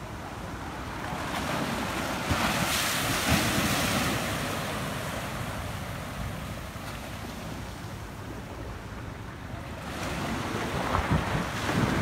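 Rough surf breaking against a concrete seawall, with water surging and foaming through a gap in the wall, and wind buffeting the microphone. The wash swells about a second or two in, eases, and builds again near the end.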